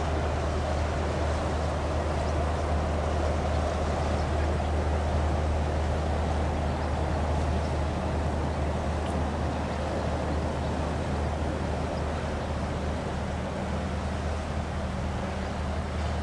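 Steady low drone of a cargo ship's engine as the ship passes along the canal, over an even hiss.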